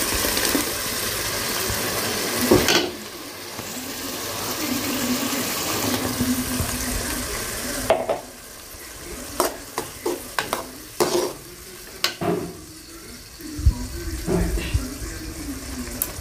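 Blended tomato puree poured into a hot kadai of frying tomatoes, sizzling steadily. From about halfway through, a metal slotted spoon stirs the mixture, clinking and scraping against the pan several times.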